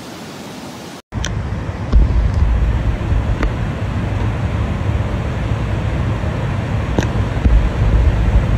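Heavy low rumble of a fire engine driving through deep floodwater, swelling twice, with a few sharp clicks. It starts about a second in, after an abrupt cut from the rushing noise of a flooded street.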